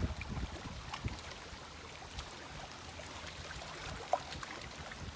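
Lake water lapping and trickling at the edge, a steady gentle wash with small splashes. It has low thuds in the first second and one brief sharp sound about four seconds in.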